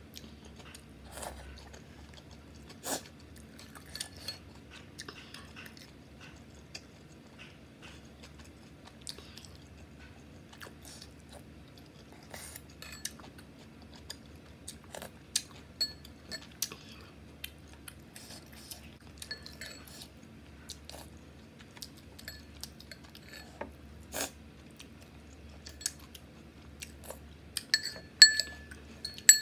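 Metal spoon clicking and scraping in a ceramic bowl, with chewing between the spoonfuls. Near the end the spoon scrapes around the emptied bowl, giving a few louder ringing clinks.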